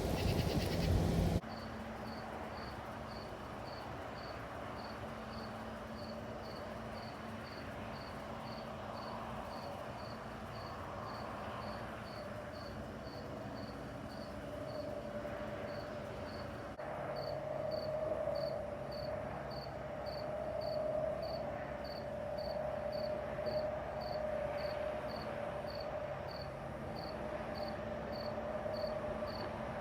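Field crickets chirping on a summer night, a steady high chirp repeating about twice a second. A louder, different sound cuts off a second or so in, and a lower wavering drone joins about halfway through.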